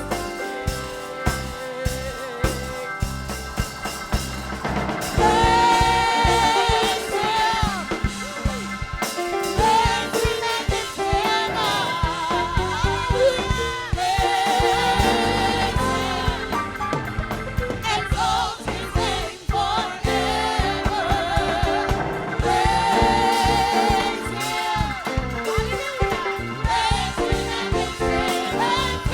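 Gospel praise music: a vocalist sings with a wavering vibrato over a band with a steady drumbeat and bass.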